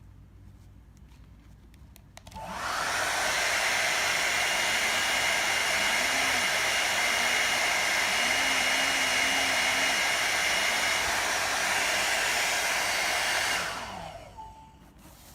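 Hot air brush (hair dryer brush) switched on about two seconds in, blowing with a steady rushing hiss and a faint high whine. It runs at an even level for about eleven seconds, then is switched off and winds down.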